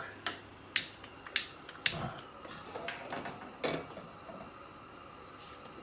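Spark igniter of a gas hob clicking four times, about half a second apart, as a burner is lit, followed by a softer knock.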